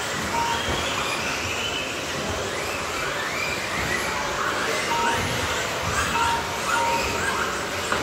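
A pack of radio-controlled racing buggies running around a track, their motors whining and rising and falling in pitch as they accelerate and brake, with tyre and chassis noise underneath. Short electronic beeps sound several times over the top.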